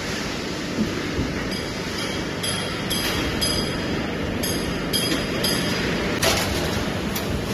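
Steady machinery din of a metal stamping line, with a run of short high metallic rings about one and a half to five and a half seconds in and a sharp bang a little before the end.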